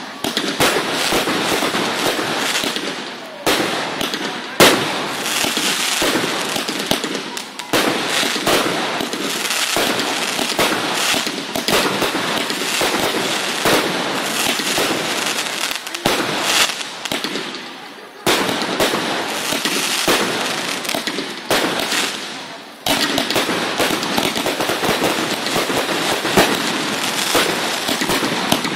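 Fireworks going off in a dense, continuous barrage of crackling and popping, with one especially loud bang about four and a half seconds in and a few brief lulls.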